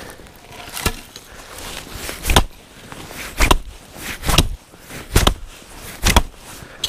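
An axe chopping into a downed log, about one strike a second, each a sharp chunk with a dull thud beneath it.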